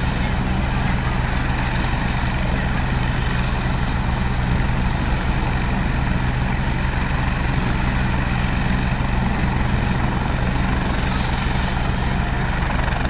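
Turbine helicopter running close by: a steady, loud rotor beat with a high turbine whine over it.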